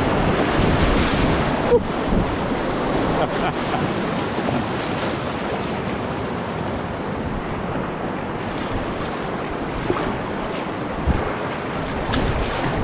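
River whitewater rushing steadily around an inflatable kayak running a rapid, with wind buffeting the microphone. A few short sharp thumps break through the rush.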